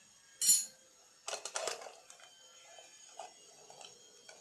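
A spoon clinking against a dish: one sharp clink, then a quick cluster of clinks about a second later, with a ringing tone hanging on after them and a few faint taps near the end.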